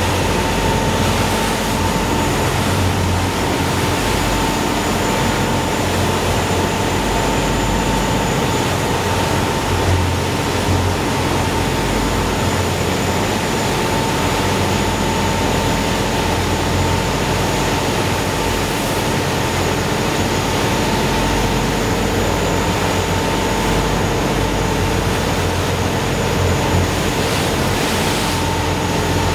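Squadron 78 motor yacht running at speed: a steady engine drone with a constant whine, over the rushing of the churning wake water.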